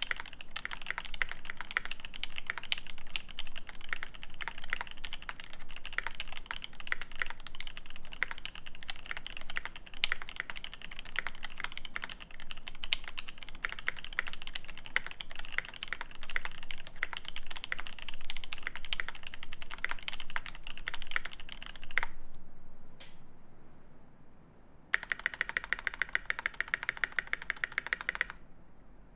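Fast typing on a custom 60% mechanical keyboard with lubed Alpaca linear switches in a brass plate, under GMK keycaps. The typing stops with a sharp click, then after a brief lull a quicker, more even run of keystrokes follows near the end.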